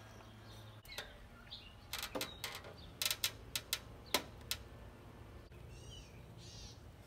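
A quick run of sharp clicks and taps, about a dozen over two and a half seconds, from a wooden deck baluster being set against the top rail and clamped in place. A bird chirps twice near the end.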